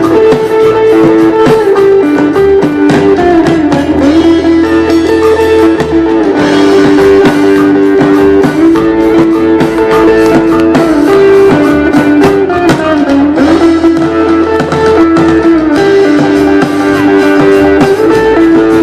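Loud guitar music: a melody of long held notes that slide from one pitch to the next, over a fuller accompaniment.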